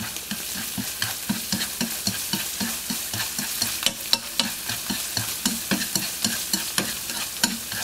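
Diced shiitake mushrooms sizzling in oil in a nonstick frying pan while being stir-fried with chopsticks. The chopsticks tap and scrape against the pan several times a second.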